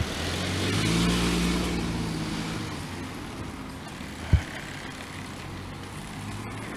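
A motor vehicle passing on the street: engine and tyre noise swell to a peak about a second in and then fade into steady traffic noise. A single short low thump comes about midway.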